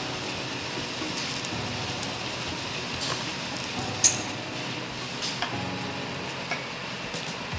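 Steady kitchen room noise with a few light knocks and clicks as dough rounds and a steel rolling pin are handled on a marble board; the sharpest click comes about four seconds in.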